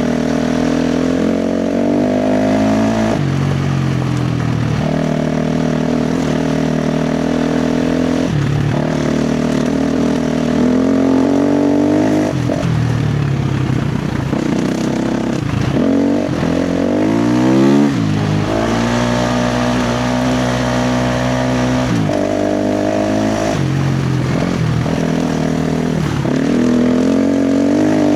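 KTM 350 XC-F dirt bike's single-cylinder four-stroke engine under hard throttle, its pitch held steady for a few seconds at a time, then climbing in quick rising runs and dropping back as the throttle is rolled on and off.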